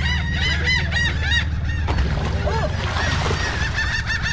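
A group of birds calling over and over: short arched calls that overlap several times a second, thinning out in the middle and picking up again near the end, over a steady low hum.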